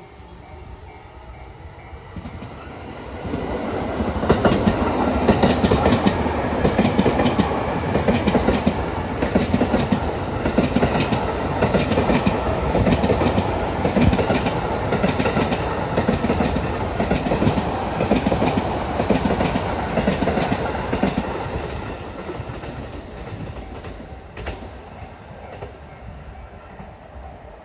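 E231-series 1000 and E233-series 3000 commuter electric train accelerating past, its wheels clattering rhythmically over the rail joints. It builds up about three seconds in and fades away over the last several seconds.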